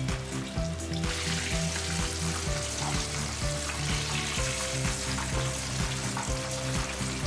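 Starch-coated chicken drumettes deep-frying in hot oil in a wok: a steady, dense sizzle that grows fuller about a second in. Background music with a steady beat plays under it.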